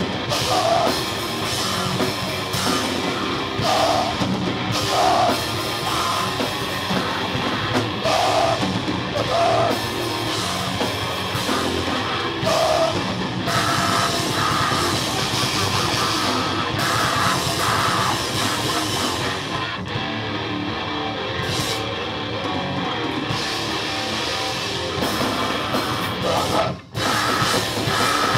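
A live band playing loud heavy punk/metal: distorted electric guitar and a pounding drum kit, with shouted vocals from the drummer. The band stops for a brief moment near the end and crashes back in.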